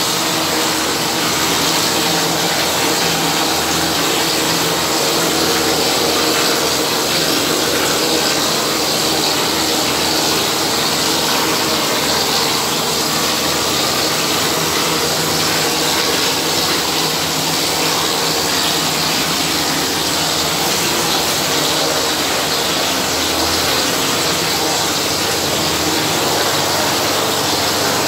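Steady hiss of a plaster spray gun blowing wet gypsum plaster onto a wall with compressed air, with a steady machine hum underneath.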